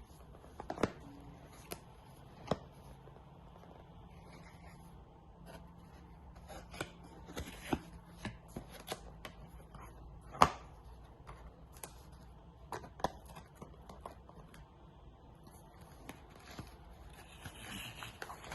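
Hands handling cosmetics packaging and containers: scattered taps, clicks and light rustling, with the sharpest knock about ten seconds in.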